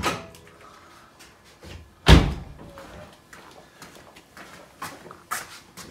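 A single heavy thunk from the BMW M2's body about two seconds in, then a few light clicks and knocks near the end.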